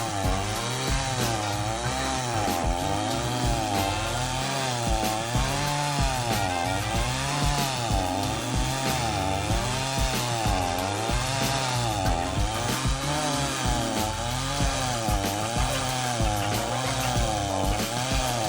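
Stihl chainsaw fitted with a Terminator stump-grinding attachment, grinding into a tree stump. The engine runs near full throttle, and its pitch dips and recovers about once a second as the cutter bites in and is swept across the wood.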